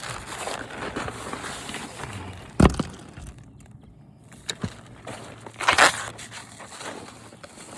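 Plastic roofing tarp rustling and crinkling as it is pulled and handled on a shingle roof, with a sharp thump about two and a half seconds in and a louder rustle near six seconds.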